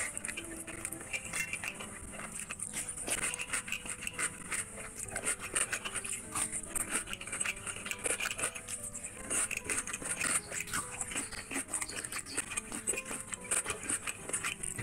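Close-miked wet chewing and lip smacking of a person eating rice and curry by hand, with a dense run of sticky mouth clicks and the squelch of fingers working rice into gravy.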